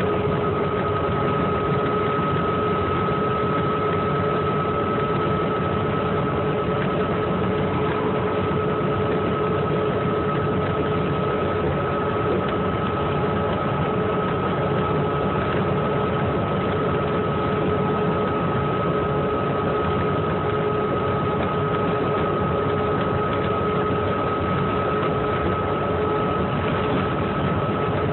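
Cabin sound of a 2008 New Flyer C40LFR transit bus cruising at steady freeway speed. Its Cummins Westport ISL-G natural-gas engine and Allison B400R6 transmission run evenly under road and tyre noise, with two steady whining tones held throughout.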